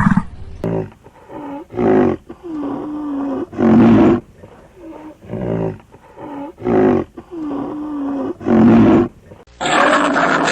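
An animal calling over and over: a series of loud, pitched moaning calls, some short and some drawn out, with the same run of calls repeating about halfway through.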